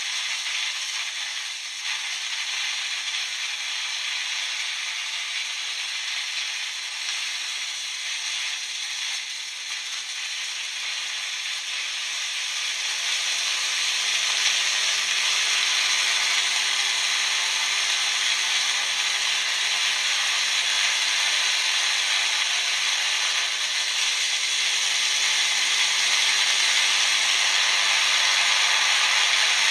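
Electric arc from an electrode into a cup of salt water, burning with a steady harsh hiss and crackle as the water is split and the hydrogen ignites. It gets louder about halfway through as the flame grows.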